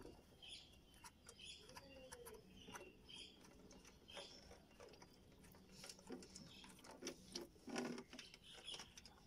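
Faint, scattered clicks and light scraping of fingers turning the radiator drain plug under a Nissan NV. A few faint bird chirps sound in the background.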